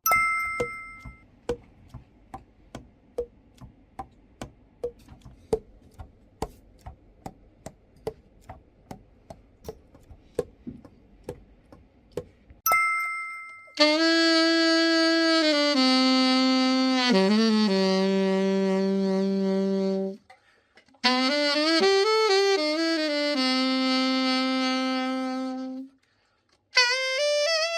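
A Yamaha YAS-61 alto saxophone playing long held notes, with a few slides and steps in pitch, in two phrases with short breaks: the instrument being play-tested after its overhaul. Before it, a run of even clicks about two a second.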